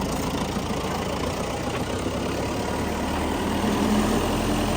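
Engine idling steadily, its note getting a little stronger and fuller about three and a half seconds in.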